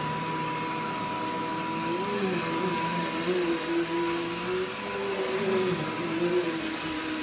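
Vacuum cleaner running continuously, its motor pitch wavering slightly up and down over a steady high whine and airflow hiss. It runs freely without straining.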